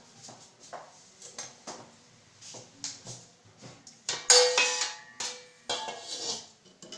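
Stainless-steel kitchenware being handled: light knocks and taps, then a loud ringing clatter of steel about four seconds in, and a second clatter shortly before the end.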